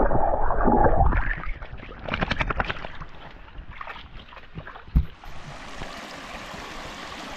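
Stream water heard first as a muffled rush with the microphone underwater, then splashing as dogs wade through the shallow stream. A single sharp knock comes about five seconds in, followed by the steady hiss of running water.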